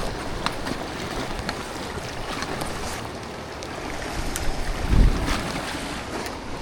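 Sea waves washing and wind buffeting the microphone, with scattered small ticks and a stronger low gust about five seconds in.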